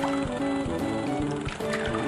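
Upbeat background music for a children's cartoon: a bouncy melody of short stepped notes over a steady beat.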